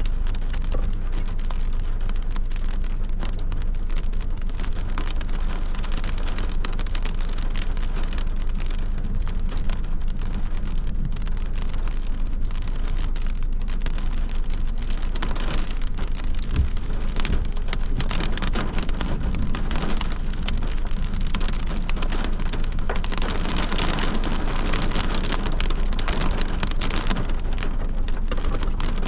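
Heavy rain falling steadily in a severe thunderstorm, a dense hiss of individual drop hits over a steady low rumble, growing a little heavier about three-quarters of the way through.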